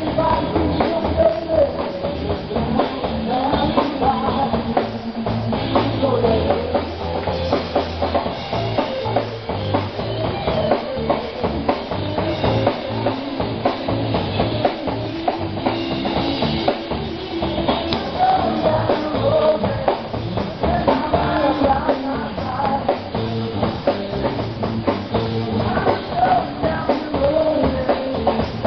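Rock music with a drum kit playing a steady beat.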